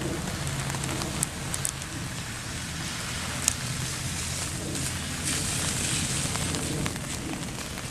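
Steady rain falling, with a few sharp drop ticks and a low steady rumble underneath.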